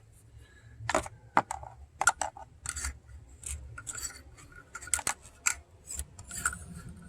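Irregular metal clicks and scrapes of a hand tool working in a spark plug well, fishing a loosened spark plug out.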